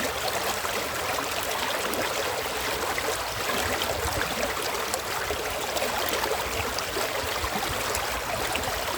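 A stream's water running over stones, a steady babbling and splashing that does not change.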